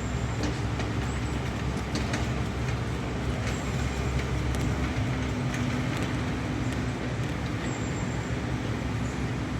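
Heavy diesel machinery on a construction site running steadily, a low engine drone with a few faint clicks and knocks over it.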